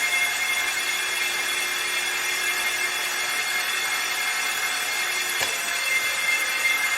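Starter motor cranking a BMW M73 V12 engine, turning it over steadily with a constant high whine.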